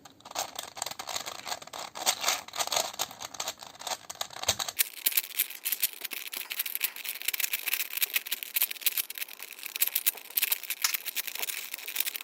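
Rubik's brand 4x4 cube being scrambled by hand: a rapid, irregular run of plastic clicks and scraping as its layers are turned. The speaker calls this cube scratchy, loose and prone to locking up.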